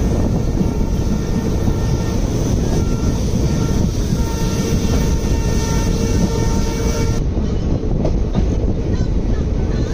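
Passenger express train running at speed, heard from an open door or window of a coach: a steady heavy rumble of wheels and wind rush. A distant locomotive horn sounds as a faint steady chord of several tones for the first seven seconds or so, then stops.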